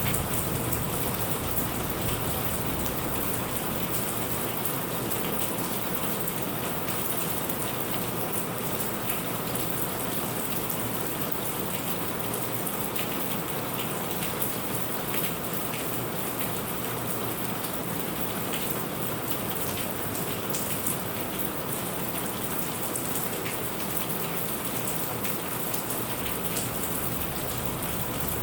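Steady rain falling on surfaces, an even hiss of rain with many individual drops ticking through it.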